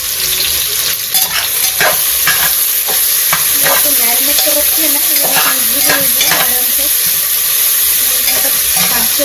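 Sliced onions frying with a steady sizzle in an open metal pressure cooker, a spatula stirring and scraping them against the pot in a run of strokes.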